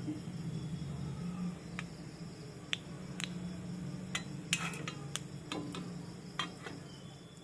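Oil heating in a hot kadai: scattered light clicks and ticks, irregular and a few to the second at most, over a steady low hum.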